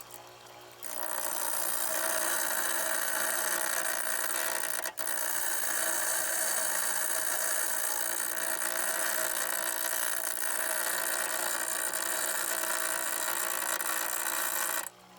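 Blade sharpener grinding a steel blade: a steady grinding hiss that starts about a second in, drops out for an instant near the middle, and stops abruptly just before the end.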